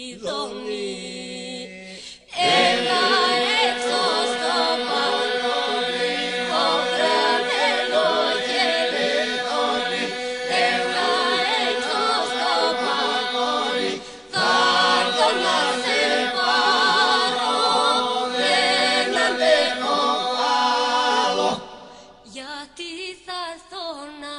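Polyphonic folk singing of the Epirus tradition, unaccompanied: several voices weaving over a steady held drone. It swells loud about two seconds in, breaks off briefly about halfway, and falls back to a quieter voice near the end.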